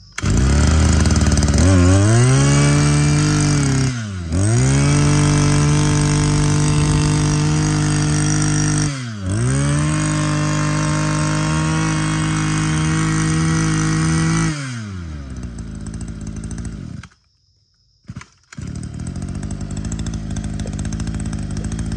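Echo Kioritz 260 26cc two-stroke brush cutter engine being run up on the throttle: it goes from idle to high revs three times, with the pitch dropping briefly in between. It then falls back to idle and cuts out, and after a short pause runs again at a low idle near the end.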